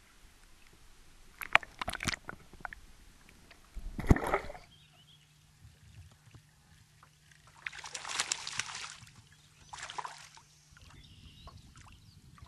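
Sharp clicks, then a heavy knock against the hull of a small aluminum boat about four seconds in. Later come two bursts of splashing as a hooked bass thrashes at the surface beside the boat.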